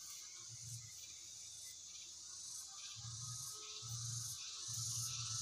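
Faint, steady, high-pitched chirring of insects, with soft low hums coming and going in the second half.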